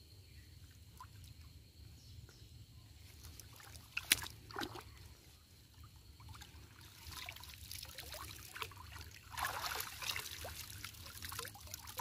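River water sloshing and trickling around a wader handling a cast net, with a sharp splash about four seconds in. Near the end the splashing and dripping grow louder as the wet net is lifted out of the water.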